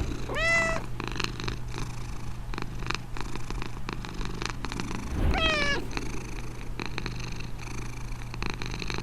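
A cat purring steadily, with two short calls that rise and then hold, about half a second in and again about five seconds in.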